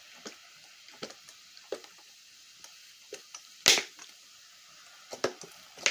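Scattered light clicks and knocks of objects being handled, with one sharper click a little past the middle and two more near the end.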